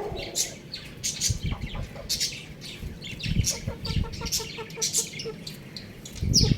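Young rooster chirping with many short, high peeps, and a run of quick low clucks in the middle. Dull low thumps come now and then, the loudest near the end.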